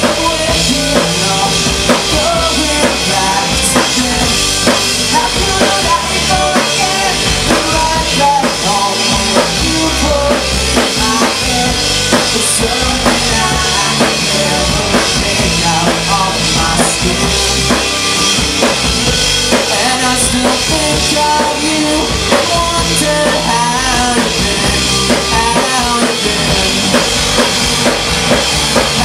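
Live rock band playing: drum kit with kick and snare driving a steady beat under electric guitars and bass guitar, heard through the room's PA.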